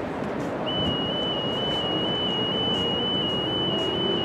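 A single long, steady whistle blast at one high pitch, starting about half a second in and lasting about four seconds, over a steady wash of outdoor noise.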